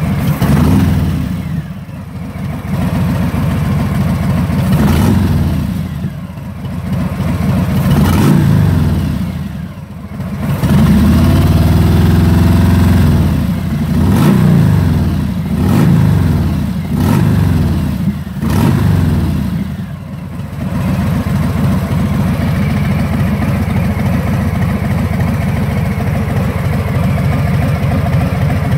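Harley-Davidson Fat Bob 114's Milwaukee-Eight V-twin breathing through Cobra El Diablo mufflers, blipped about ten times with one longer held rev near the middle, then settling into a steady idle for the last third. The exhaust note is low and deep rather than crackly.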